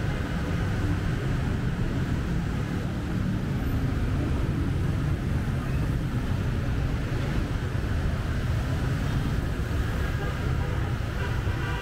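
Steady, low rumble of city street traffic, with voices faintly heard near the end.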